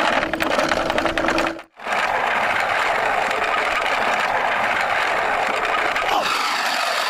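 Steady whirring of a small motor, with a brief cut to silence about a second and a half in.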